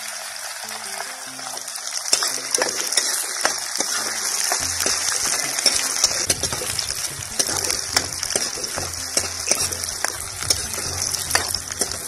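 Sliced onions, garlic and broken red chillies sizzling steadily in hot oil in a kadhai, the onions just added to brown. A metal ladle stirs them, with short scraping clicks against the pan.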